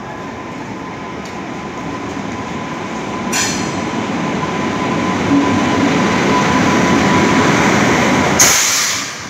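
Indian Railways WAP-7 electric locomotive and its passenger coaches running past along a station platform: a steady rumble of wheels on rail that grows louder as the train comes by. There is a brief high-pitched sound about three seconds in, and a loud burst of hiss near the end before the level drops away.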